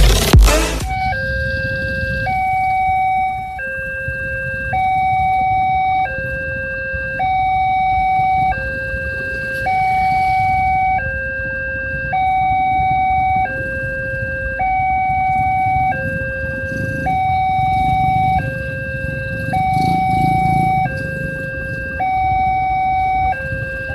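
Railway level-crossing warning signal sounding a steady two-tone alarm that switches between a lower and a higher tone about every 1.2 seconds, the signal that a train is approaching the crossing. A low rumble runs underneath, and intro music cuts off under a second in.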